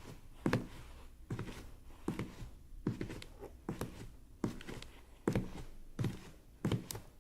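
Footsteps at a steady walking pace, about nine evenly spaced steps, each a dull thud with a short scuff.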